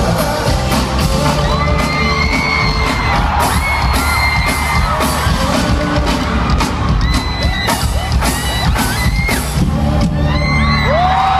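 A live pop band and singers playing loudly in an arena, heard from within the crowd, with fans screaming and whooping over the music.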